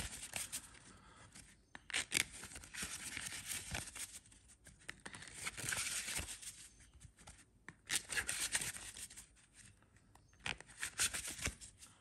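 A tarot deck being shuffled by hand, overhand style: packets of cards sliding and flicking against each other in repeated spells of rustling, with short pauses between.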